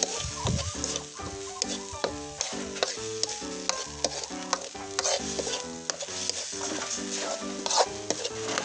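Spatula scraping and stirring a thick paste of chopped fermented fish in a wok, the paste sizzling in a little oil, with repeated short scrapes against the pan. Background music plays underneath.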